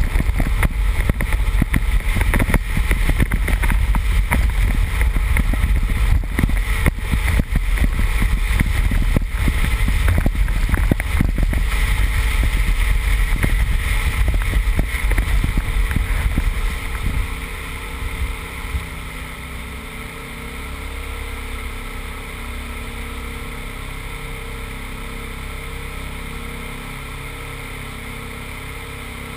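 A 2001 Subaru Impreza 2.5RS's flat-four engine driven hard over a muddy dirt rallycross course, heard from a camera on the car's outside. It is a loud, rough rumble with many short knocks. About two-thirds of the way in it drops away and settles to a steady idle as the car stops.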